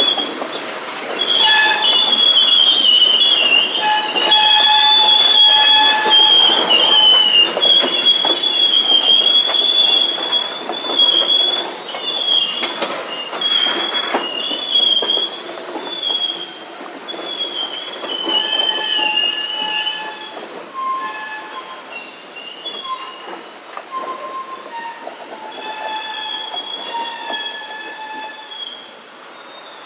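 Freight cars rolling slowly past, their steel wheels squealing against the rail in high, wavering tones, with occasional clunks. The squeal thins out and fades in the second half as the last covered hopper draws away.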